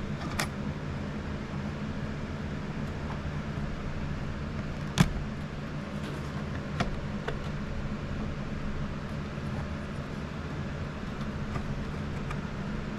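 Small plastic clicks and knocks from working a cable connector into the Anycubic Ace Pro's replacement buffer unit, the sharpest about five seconds in, over a steady low machine hum.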